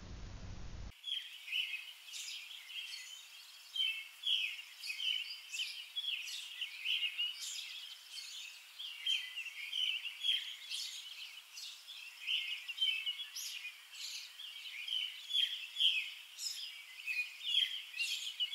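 Birds chirping and twittering outdoors, beginning about a second in: many short, quick calls repeated throughout, over faint background hiss.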